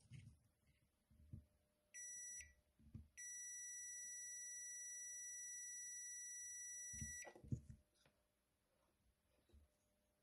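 Digital multimeter's continuity buzzer beeping as its probes touch points on a charger circuit board: a half-second beep about two seconds in, then one steady beep of about four seconds, the sign of a closed, low-resistance path between the probed points. Soft knocks of the probes and hands on the board come around the beeps.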